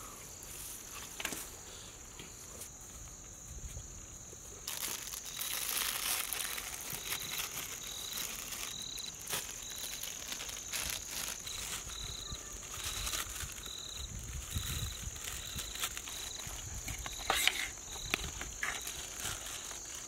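Crickets chirring steadily at night, joined about five seconds in by a second insect's short, regular chirps, about one and a half a second. Rustling, crinkling and clicking handling noise from biryani rice being scooped from large steel pots runs over it.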